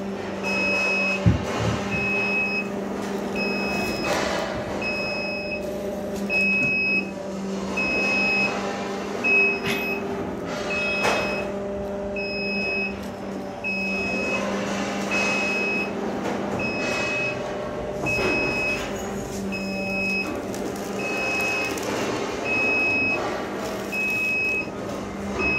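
Goods lift's warning beeper sounding a steady run of short, high beeps, about one every three-quarters of a second, over the steady hum of the lift's drive while the loaded platform travels down the mast. A single sharp clank comes about a second in.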